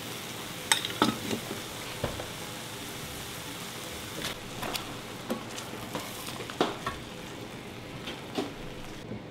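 Steady sizzle and bubbling from a saucepan of ground sausage in tomato sauce and a pot of boiling pasta. Spoons stirring the pots knock against them about eight times, scattered through the sound.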